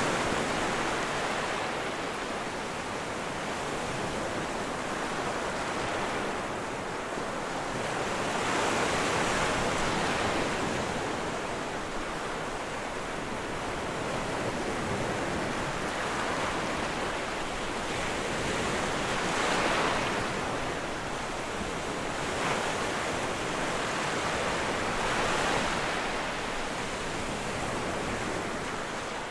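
Ocean surf: a steady wash of breaking waves that swells and eases every several seconds.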